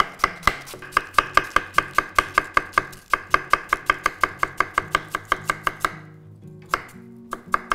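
Knife finely shredding a head of green cabbage on a wooden cutting board: quick, even chopping strokes, several a second, that stop about six seconds in, followed by a few single cuts.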